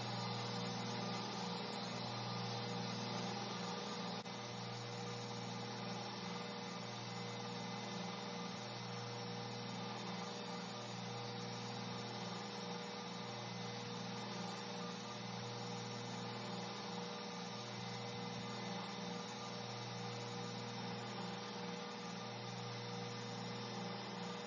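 Steady electric hum of a running belt grinder's motor, wavering slowly, with no grinding against the belt.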